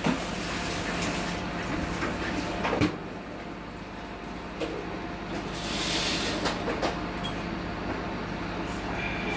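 Steady background hum with a few light clicks and knocks, and a brief hiss about six seconds in.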